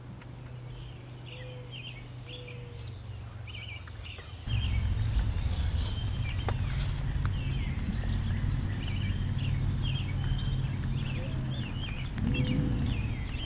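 Songbirds chirping over and over, many short calls overlapping, over a steady low rumble that gets louder about four and a half seconds in.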